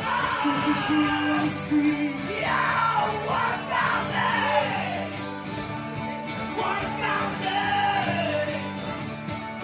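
Live acoustic music: a strummed acoustic guitar and a mandolin playing together, with singing coming in for a phrase about two seconds in and another about seven seconds in.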